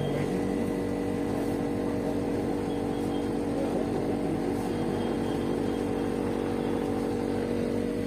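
Window air conditioner running with a steady hum and a few constant tones.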